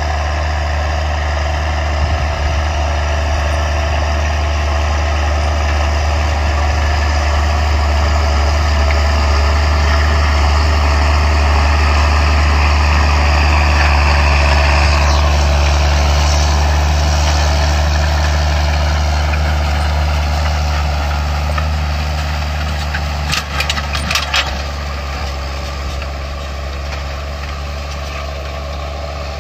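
John Deere 7810's 8.1-litre six-cylinder diesel running steadily under load, pulling a five-furrow plough through the soil, a deep steady drone. A brief clatter of sharp knocks comes about two-thirds of the way through, and the engine sound drops lower near the end.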